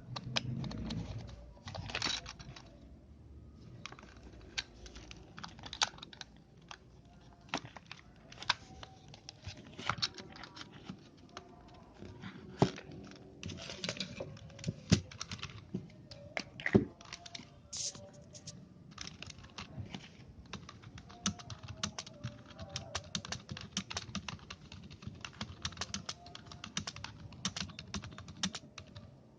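Typing on a Logitech MK220 wireless membrane keyboard: a run of irregular key clicks, with a few louder knocks in the middle.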